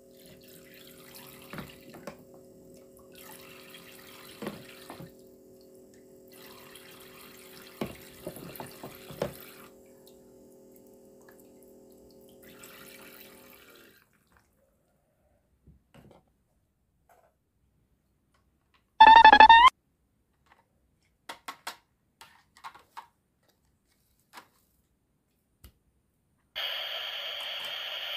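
Toy kitchen sink's battery pump humming steadily as water runs from its faucet, with light clicks of plastic toy fruit being handled; the water and hum stop about halfway through. Later come one short, loud beep-like tone, a few clicks, and near the end a steady hiss.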